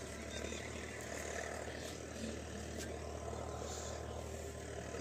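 Steady low drone of a distant engine under faint outdoor background noise.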